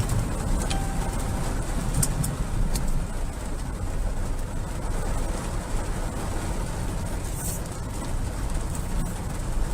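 Rainstorm with strong wind: a steady low rumble of wind and rain, with a few sharp ticks.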